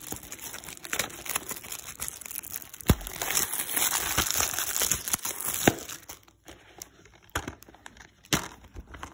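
Plastic shrink-wrap on a DVD case crinkling and tearing as it is handled and pulled off. Densest in the middle, with two sharp clicks, then fewer scattered crackles and taps toward the end.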